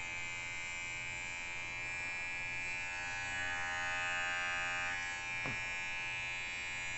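Cordless pet grooming clipper running with a steady electric buzz, its blade freshly cleaned and oiled.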